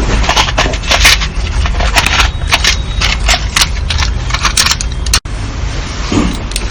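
Irregular clicks, rustles and scrapes of objects being handled, over a steady low rumble; the sound cuts out for an instant about five seconds in.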